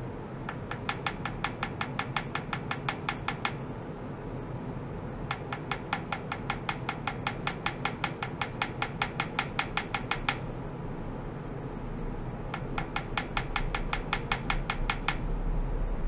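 Small wooden hammer tapping rapidly on a stainless steel tray, about six or seven light taps a second, in three runs separated by short pauses. A steady low hum lies underneath.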